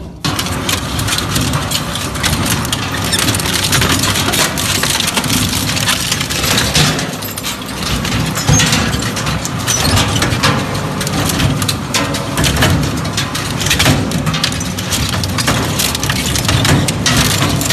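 Heavy crushing or shredding machine running under load, a steady motor rumble overlaid with dense, irregular cracking and snapping as material breaks.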